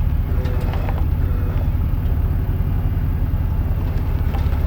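Truck engine running with a steady low rumble, with a few faint clicks about half a second to a second in.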